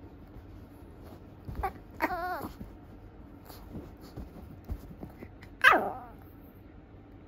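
Teacup poodle puppy whining: a short wavering whine about two seconds in, then a louder whine that drops steeply in pitch near the end.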